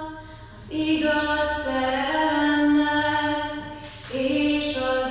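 A young woman singing solo and unaccompanied, holding long notes, with short breaks for breath just after the start and again about four seconds in.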